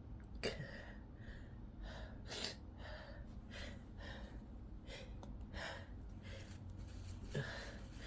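A person's sneeze buildup: a long run of short, catching gasps and sniffing breaths, about one or two a second, building toward a sneeze that does not come.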